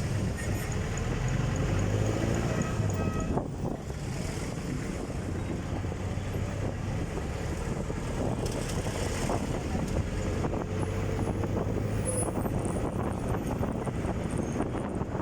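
Steady vehicle engine and road noise from traffic on the move, with an engine's pitch sliding about two to three seconds in.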